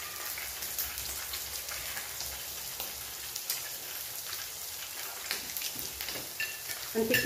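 Pork belly slices sizzling on an electric griddle: a steady frying hiss with scattered small crackles.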